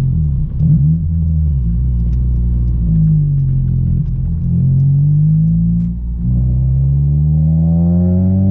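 A 9th-generation Honda Civic Si's 2.4-litre four-cylinder engine running through an Invidia cat-back exhaust and aftermarket downpipe while driving. The engine note dips about half a second in and again around six seconds in, then climbs steadily toward the end as the car accelerates.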